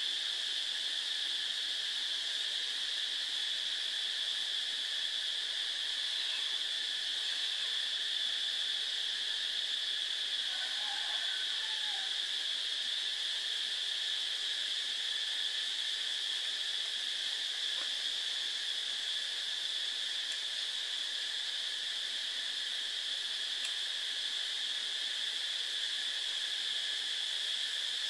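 A steady high-pitched drone at two constant pitches, unchanging throughout, of the insect-chorus kind.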